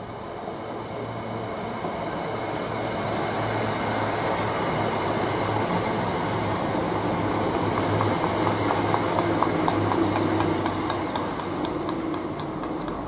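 ScotRail Class 320 electric multiple unit running past close by, with a steady electric hum that grows louder. About two-thirds of the way through, its wheels start clicking rapidly over the rail joints, while a Class 385 electric unit draws in on the next track.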